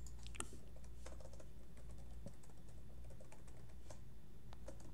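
Computer keyboard keystrokes, an irregular run of light key clicks as a username and password are typed in, over a steady low hum.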